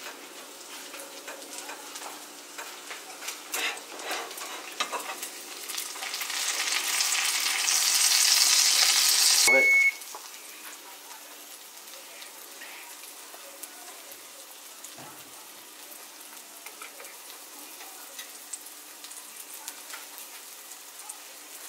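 Cauliflower slice frying in butter in a pan, sizzling and crackling. The sizzle swells to a loud hiss over a few seconds, then drops off suddenly about halfway through, followed by a brief high beep and quieter steady crackling.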